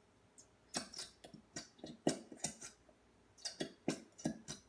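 Quick, irregular clicks and taps, a few a second: a utensil stirring glue and coloring in a container and knocking against its sides as slime is mixed.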